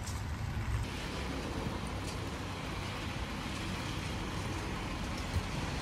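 Steady outdoor noise of road traffic: a low rumble with a wash of hiss over it. Its character shifts slightly about a second in.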